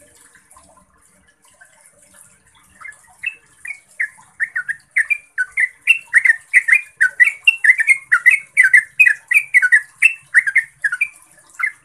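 Yellow-vented bulbul singing a long, quick run of short notes, about three or four a second, starting about three seconds in: the long rolling song that keepers use to draw other bulbuls into song.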